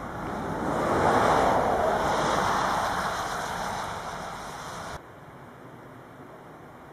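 A rushing noise that swells over about a second, slowly fades, then cuts off abruptly about five seconds in, leaving a faint hiss.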